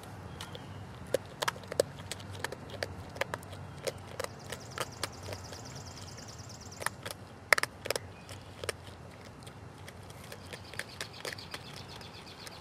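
North American porcupine chewing fruit and vegetables, crunching in sharp, irregular bites, with a loud burst of crunches about halfway through.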